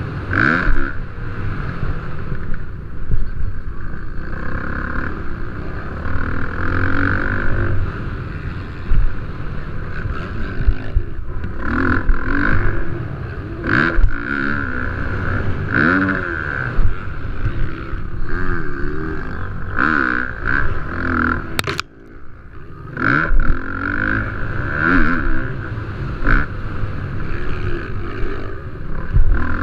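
Motocross dirt bike engines racing on a track, revving up and falling back over and over as the throttle opens and closes. The sound drops away briefly about three-quarters of the way through, then comes back loud.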